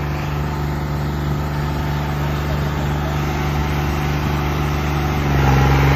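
Tractor diesel engine held at steady high revs while pulling against another tractor in a tug-of-war, growing slightly louder near the end.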